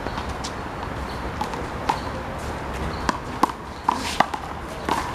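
A rubber handball being slapped and bouncing in a one-wall handball game: sharp, irregular smacks, a few at first, then coming quicker from about three seconds in.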